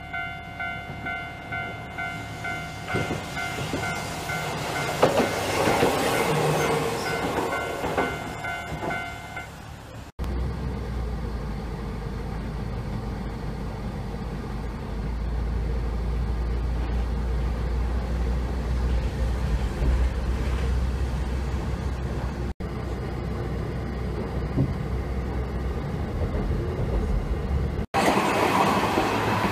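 A railway level-crossing bell ringing in steady pulses about twice a second while a tram draws near and runs past on its track, louder about five to eight seconds in. After a cut, a steady low rumble.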